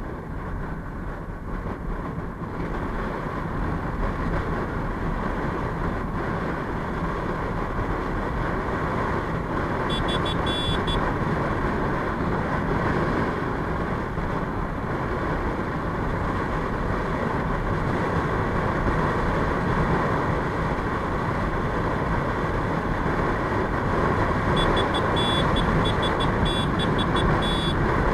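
Steady wind rush and engine and road noise from riding a two-wheeler at speed. Twice, about ten seconds in and again near the end, comes a run of short, high, repeated beeps.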